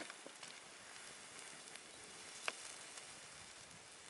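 Faint hiss and scattered small crackles of a campfire being put out with water, with one sharper pop about two and a half seconds in.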